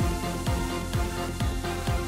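Background electronic music with a steady kick-drum beat, about two beats a second.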